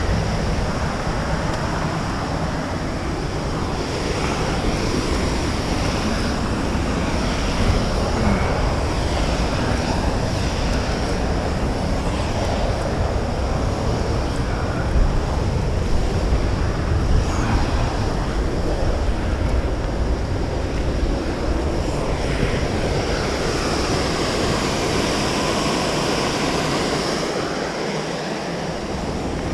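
Steady rushing roar of falling water mixed with wind buffeting the microphone, with a few brief knocks along the way.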